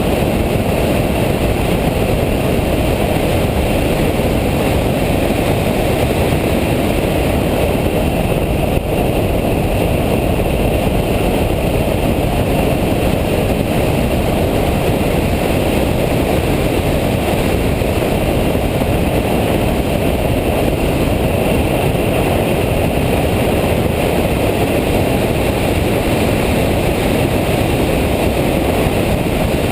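Loud, steady in-cabin noise of a Nissan Nismo car driven at speed on a race track: engine, wind and tyre noise blended into one continuous sound, with no clear rises or falls in pitch.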